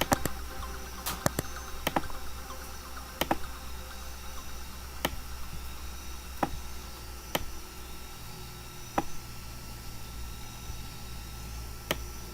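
Computer mouse clicking about a dozen times at irregular intervals, over a steady low electrical hum.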